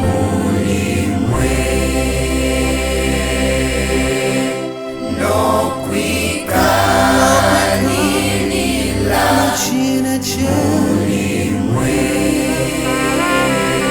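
Gospel choir singing over music with held bass notes that change every couple of seconds.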